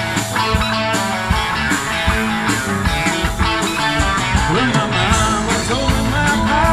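Rock band playing live, an instrumental passage led by electric guitar over bass and steady drum hits.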